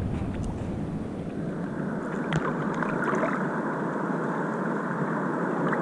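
Ocean water lapping and sloshing against a surfboard, picked up close by a GoPro riding just above the water, with small drips and splashes scattered through and one sharper splash about two and a half seconds in.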